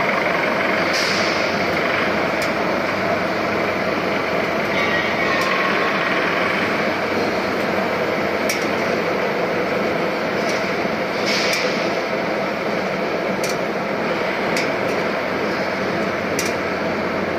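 Chain link fence machine running: a steady mechanical din with irregular sharp metallic clicks every second or two.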